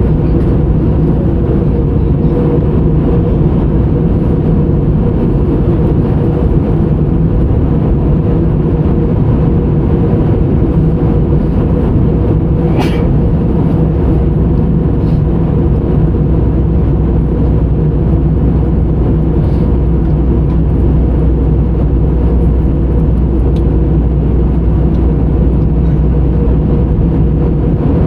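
Steady drone of a jet airliner in flight, heard inside the passenger cabin: engine hum and rushing air with a constant low hum, and one faint click about halfway through.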